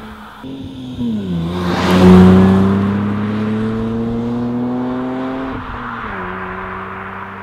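Lexus IS200's 2.0-litre straight-six running through a Cobra Sport resonated cat-back exhaust as the car accelerates. The engine note climbs steadily and drops with an upshift about a second in and again about two seconds before the end, loudest around two seconds in.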